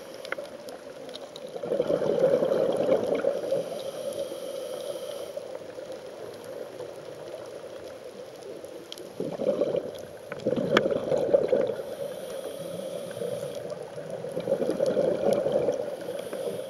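Scuba diver breathing through a regulator underwater: a thin hiss on each inhale alternating with louder, gurgling rushes of exhaled bubbles, a few seconds apart. A few sharp clicks are scattered through it.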